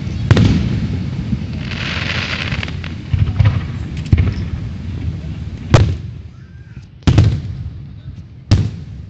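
Aerial fireworks shells bursting overhead: a series of about six sharp booms at irregular intervals, each with a trailing echo.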